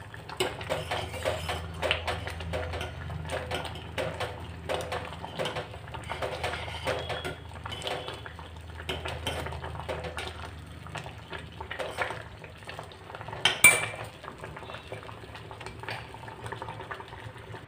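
Metal spoon stirring thick, boiling sabudana (sago) in a stainless steel pot: repeated scraping and clinking against the pot, with the pot ringing faintly, and one louder, sharper clink about three-quarters of the way through. The sago is at the boil and its pearls are starting to dissolve, over a low steady hum.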